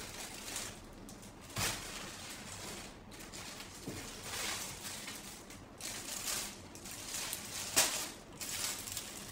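Plastic packaging rustling and crinkling as it is handled and unpacked, with a couple of sharper crackles, one about a second and a half in and a louder one near the end.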